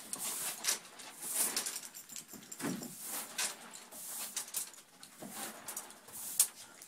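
Several dogs playing in snow: a couple of short, low vocal noises from the dogs, about a third of the way in and again past the middle, among scattered rustling and clicking sounds.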